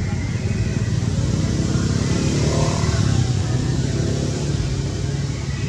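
A motor vehicle passing by: a steady low engine hum that swells to its loudest about halfway through and then fades.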